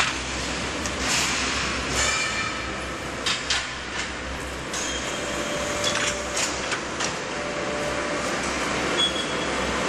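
Concrete block production line machinery running: a steady low hum with irregular metallic clanks and knocks as the stacking gripper and pallet conveyor handle the blocks.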